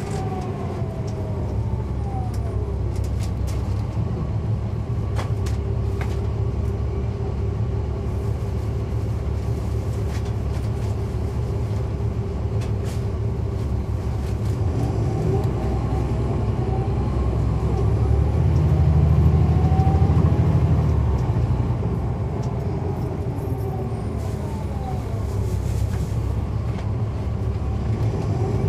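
A NABI 40-foot transit bus's Caterpillar C13 ACERT diesel engine running under way, heard from inside near the back. A steady low rumble is joined by a whine that rises and falls in pitch several times as the bus speeds up and slows. The rumble grows louder for a few seconds about two-thirds of the way through, and there are a few sharp clicks.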